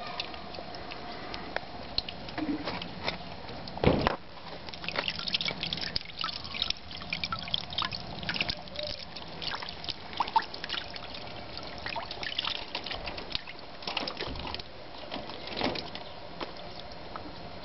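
Rainwater running down a rope from a pipe outlet and trickling and dripping into a bucket: a steady patter of many small, irregular splashes. One louder knock about four seconds in.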